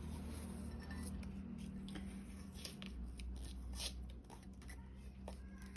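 Faint clicks and rustles of painter's tape being handled and wrapped around a ceramic mug, over a steady low hum.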